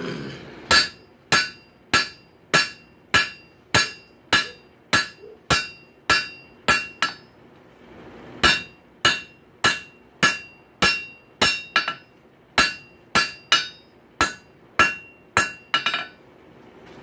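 Hand hammer striking a hot steel rail spike on an anvil in steady blows, about two a second. Each blow rings. The blows stop for about a second and a half midway, then resume. This is planishing: knocking down small rises to smooth the forging.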